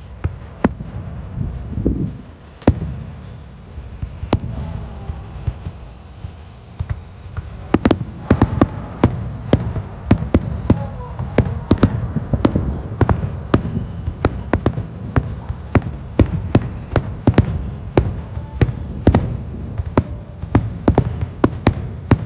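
Aerial fireworks bursting: a few scattered bangs, then from about eight seconds in a rapid, dense run of bangs, several a second, over a low rumble.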